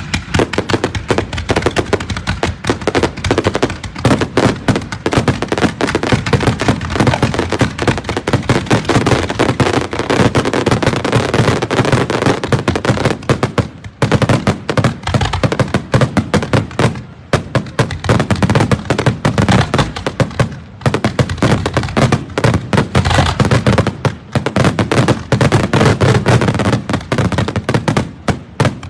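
Fireworks show: a dense, rapid barrage of bangs and crackling shell bursts, with short lulls about halfway through and two-thirds of the way in, thinning out near the end.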